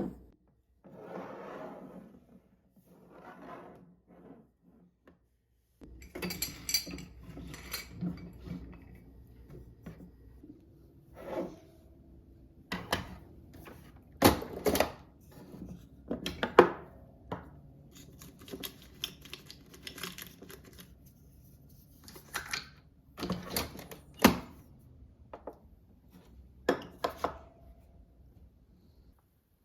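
Dishes and food containers being handled: a string of separate clinks and knocks, the loudest about halfway through, after a few soft rustles in the first seconds.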